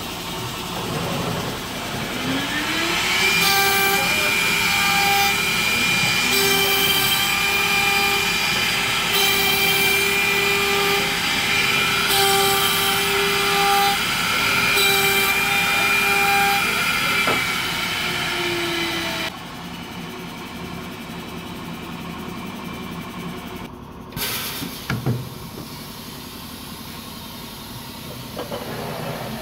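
Woodworking machine's motor whining as it spins up to speed, running steadily with a flickering whine, then winding down. A few sharp knocks follow, and near the end it starts to spin up again.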